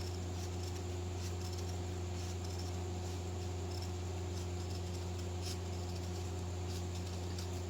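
Steady low hum, with faint scattered snips of scissors cutting a collar band from fabric or buckram.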